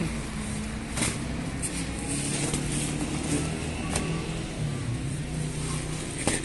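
Steady low mechanical hum, with a few short taps and rustles as thin flatbreads are handled on a wire rack: about a second in, near the middle and just before the end.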